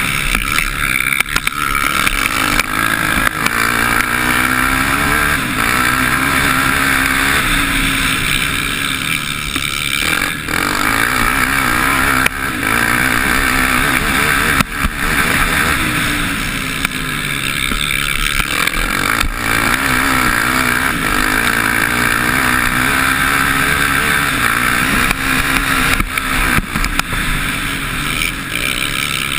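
Motocross bike's engine under hard riding, heard from a camera mounted on the bike: the revs climb and drop again and again as the rider accelerates and shifts, over a constant rush of noise.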